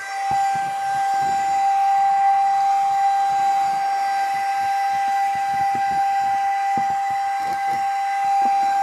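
Small cordless hand-held vacuum (DSPIAE HC-V) running, a steady high whine with a hiss of airflow, picking up sanding dust. Scattered light knocks and rattles sound under it.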